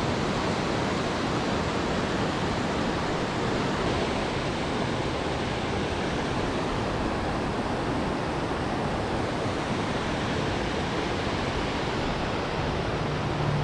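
Steady rushing of a mountain river's rapids running high after rain.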